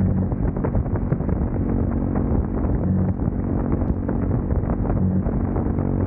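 KTM Duke 390's single-cylinder engine running at a fairly steady pitch while the bike is ridden, with wind buffeting the microphone.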